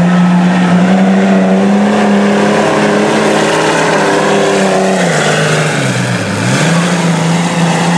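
Lifted diesel mud truck engine held at high revs while plowing through deep mud, its pitch dropping about five seconds in and climbing back up about a second later, with the rush of mud and water thrown from the tires.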